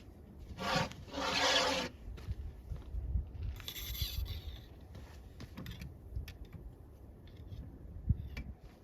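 A spent 12 gauge hull scraping as it is worked out of a tight shotgun chamber, two long scrapes about a second in, followed by scattered light taps and clicks. The hull is stuck after a high-pressure load, which the ejector could barely pull.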